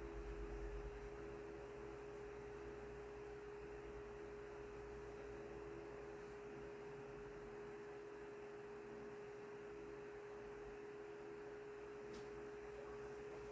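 Mainstays 12-inch oscillating table fan running on its low setting: a faint, steady motor hum holding one pitch.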